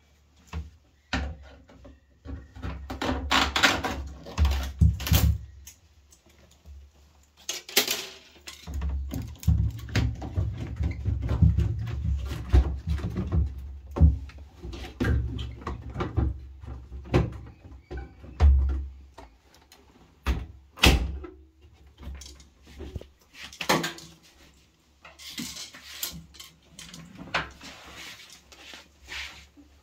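Irregular knocks, clicks and clatter of hard parts and tools being handled, with spells of low thumping and rubbing.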